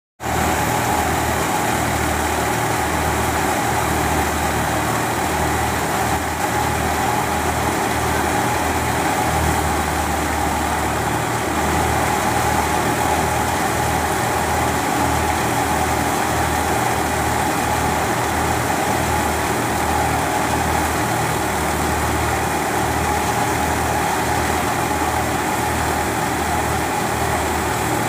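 Tractor engine and farm machinery running steadily, with an uneven low throb underneath.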